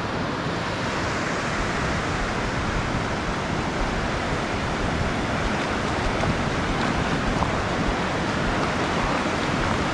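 Surf breaking and washing up a sandy beach: a steady, even rush of waves.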